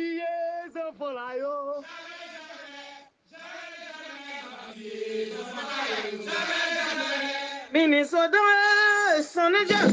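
Voices chanting a Haitian Vodou song in long, held sung lines with vibrato, with a short break about three seconds in.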